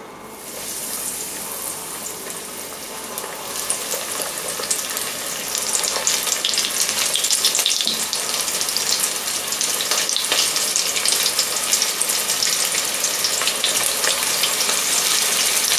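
Breaded beef meatballs deep-frying in hot oil: a sizzle full of fine crackling. It starts as the first ball goes in, grows louder over the first few seconds as more balls are added, then holds steady.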